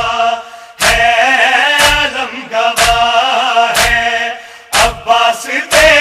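Men chanting a Shia nauha (lament) in Urdu, with a steady thud about once a second: the rhythmic chest-beating of matam keeping time with the chant.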